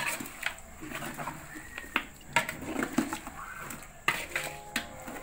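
Stirring chicken and masala in a metal cooking pot: a spoon scraping and knocking against the pot in irregular clinks.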